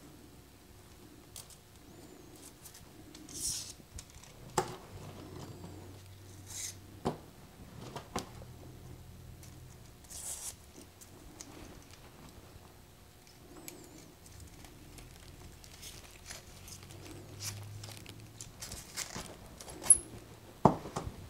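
Light clicks and scrapes of small ceramic insulator pieces being slid onto thermocouple wire legs and handled on a workbench, with soft rustling in between. The sharpest click comes near the end as the wires are fitted into a ceramic terminal block.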